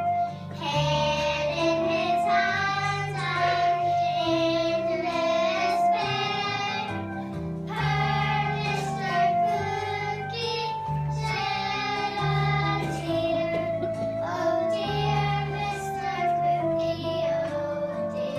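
Children singing a song together, with an instrumental accompaniment that includes plucked strings.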